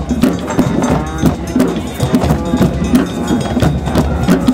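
Trombone playing notes over a drum circle's busy beat of hand drums and other percussion.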